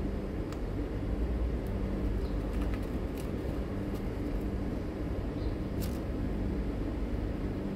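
Steady low mechanical hum of running machinery, with a constant drone underneath. A few faint, crisp clicks come through now and then as the cat crunches dry kibble.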